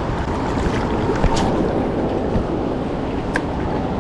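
Steady wind rumbling on the microphone by the river, with a couple of faint clicks.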